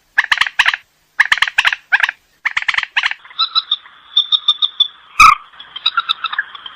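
White-breasted waterhen calling: loud, harsh croaking calls in quick groups of three or four, then a faster, continuous run of notes over a steady high piping. A single sharp knock a little past five seconds in.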